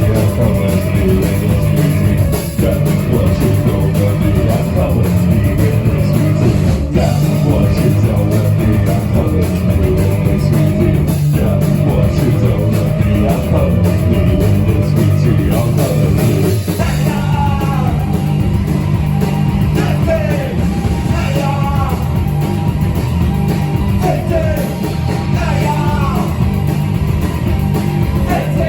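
A rock band playing live: bass, drums and guitar with a steady beat, and a voice singing from a little over halfway through.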